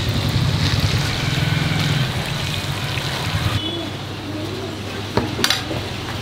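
Quail deep-frying in a large kadai of hot oil over a wood-fired rocket stove: a steady sizzling hiss over a low rumble. The sizzle turns softer about three and a half seconds in, and a couple of sharp clicks come about five seconds in.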